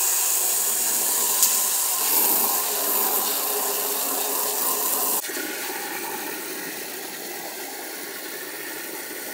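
Garden hose spray nozzle blasting water into an empty glass aquarium, a loud steady hiss and splatter. About five seconds in it cuts to a duller, quieter rush of water running into the tank as it fills.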